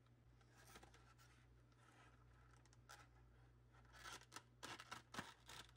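Near silence, then from about four seconds in, faint clicks and crinkles of a clear plastic blister tray being handled.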